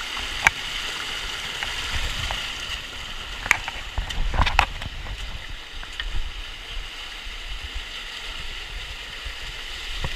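Rushing water of the Virgin River pouring over a small waterfall, a steady hiss, with a few sharp knocks about half a second, three and a half and four and a half seconds in.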